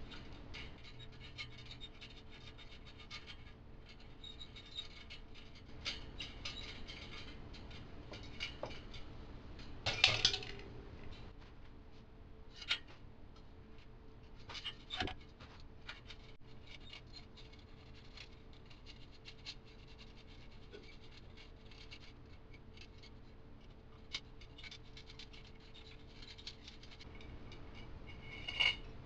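Steel spokes being unscrewed and pulled out of a bicycle hub-motor wheel: small metallic clicks, scrapes and rattles, with a louder ringing clink about ten seconds in.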